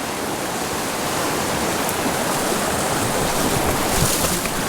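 Steady rushing of a mountain creek flowing over rocks, with a few faint knocks near the end.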